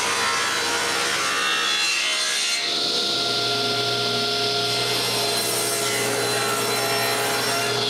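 Table saw running and making bevel cuts in poplar: a steady motor whine with the hiss of the blade going through the wood.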